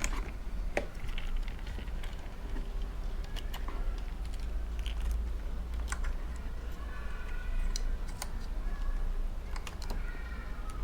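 Scattered light clicks and taps of hand tools and small metal parts being handled while a motorcycle battery is disconnected, over a steady low hum.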